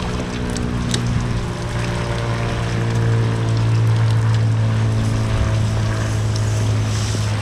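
An engine running steadily at one low pitch, growing a little louder midway, over wind and water noise.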